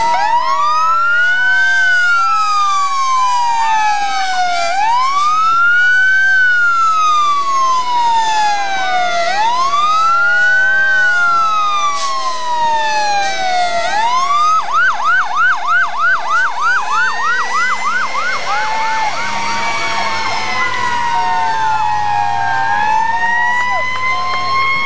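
Fire engine sirens sounding together, several pitches overlapping. Slow wails rise quickly and fall slowly, about every four and a half seconds. About fifteen seconds in, a fast yelp of about four cycles a second takes over for a few seconds before slower wails return.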